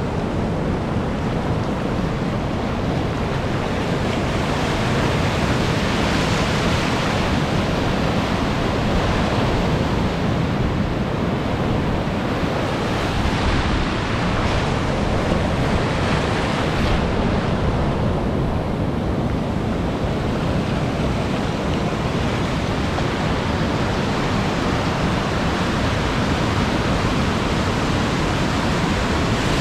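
Ocean surf breaking and washing in over shallow water in a steady, unbroken rush, with wind buffeting the microphone.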